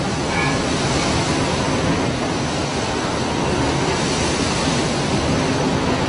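Loud, steady rush of a storm-tossed sea: wind and breaking waves with no distinct crashes standing out.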